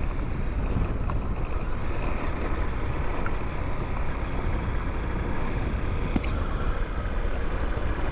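Honda CRF250L single-cylinder four-stroke engine running at a steady cruising speed, mixed with tyre and wind noise on a gravel road. A single sharp click about six seconds in.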